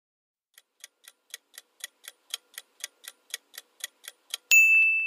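Clock-tick sound effect of a quiz countdown timer, about four sharp ticks a second, followed near the end by a single bright chime that rings on and fades as time runs out.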